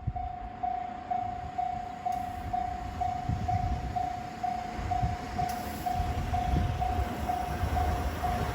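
Japanese level-crossing warning bell ringing: one electronic tone pulsing steadily about twice a second, with a low uneven rumble underneath.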